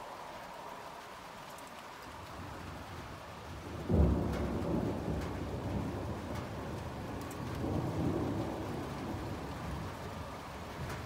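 Rain falling steadily, then about four seconds in a sudden crack of thunder that rolls on as a low rumble, swelling again near the end before fading back under the rain.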